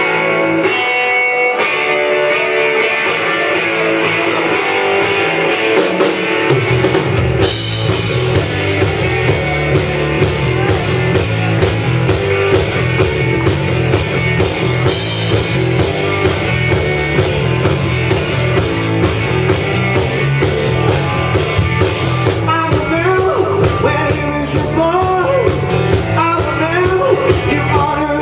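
Live rock band starting a song. Electric guitars play the intro alone, then bass and drums come in about six seconds in, and a man's singing joins near the end.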